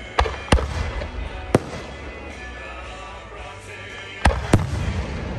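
Fireworks shells bursting with sharp bangs: three in the first second and a half, then two close together about four seconds in, with a low rumble between them. Music plays underneath.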